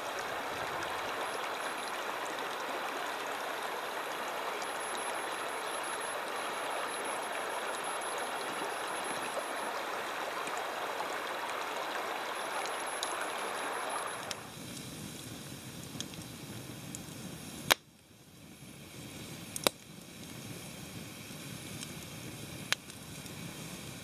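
Shallow creek water rushing steadily over rocks. About fourteen seconds in it gives way to a quieter, lower hiss with three sharp pops, a wood campfire crackling.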